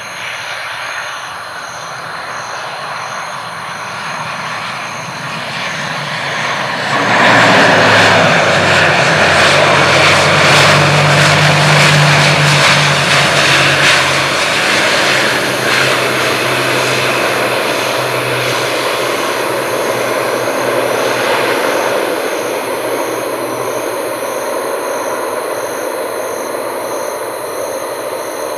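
ATR 72-600 twin-turboprop on the runway, its propellers and engines droning. The sound builds, jumps sharply about seven seconds in and is loudest as the aircraft passes close, then fades slowly as it moves away.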